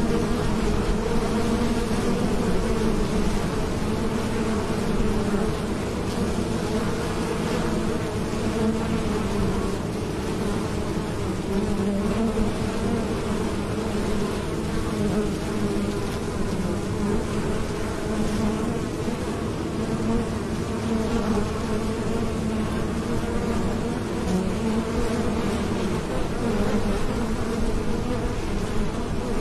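Many honeybees buzzing in flight at a hive entrance as foragers come and go: a steady, unbroken hum of wingbeats with a low drone and a higher overtone over it.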